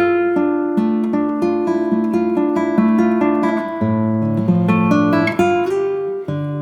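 Background music: acoustic guitar, plucked notes over held chords.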